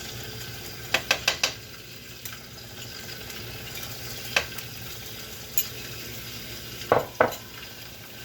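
Garlic sizzling in a little hot oil in a pan while a utensil stirs it, knocking against the pan: four quick knocks about a second in, single knocks a little later, and two more near the end.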